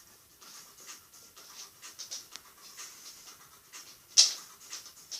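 Rottweiler-cross dog panting in short, uneven breathy huffs, with one much louder huff about four seconds in.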